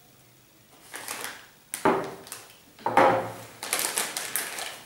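Glass tumblers knocked down onto a table twice, then a plastic snack bag crinkling as it is handled and opened.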